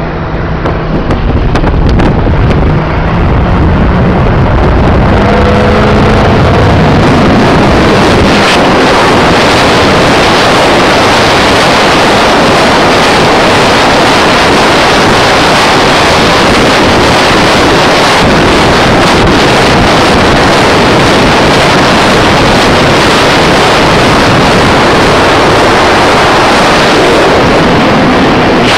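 Loud, steady rush of wind over the microphone with road noise from a moving vehicle, and a faint low hum in the first few seconds.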